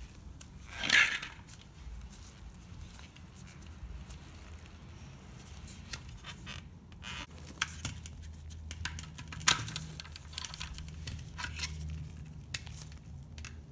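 Hands handling a plastic coolant reservoir: scattered rustling, scraping and clicking, with a loud rustle about a second in and a sharp click near the ten-second mark, over a low steady hum.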